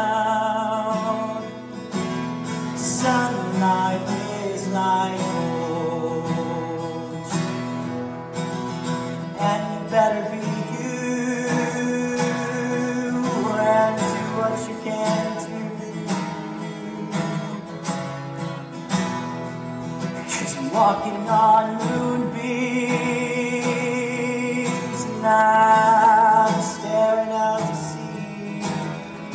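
A man singing a slow song while strumming an acoustic guitar, with a long held note a little past three-quarters of the way through.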